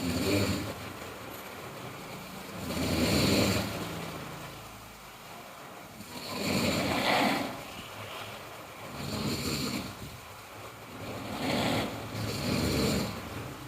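A sleeping person snoring loudly: rough, buzzing breaths that swell and fade, about one every two to four seconds.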